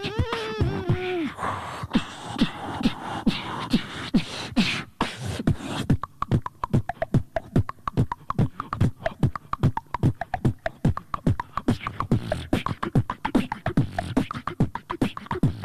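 Two beatboxers performing together into handheld microphones: vocal kick-drum and snare sounds at a fast steady beat, opening with a sung, gliding vocal line.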